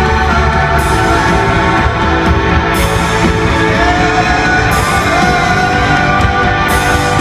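Rock band playing live, loud and steady: an instrumental stretch without singing, led by guitar, with a bright accent about every two seconds.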